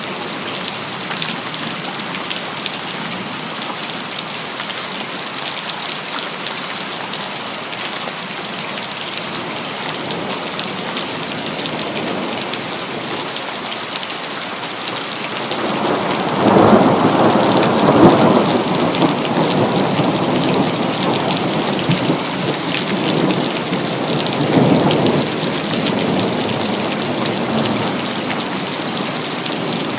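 Steady heavy rain falling, with a roll of thunder that builds about halfway through, peaks, swells again briefly, and fades back under the rain near the end.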